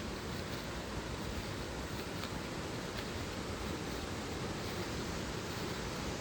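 Mountain valley stream flowing, a steady, quite loud rush of water.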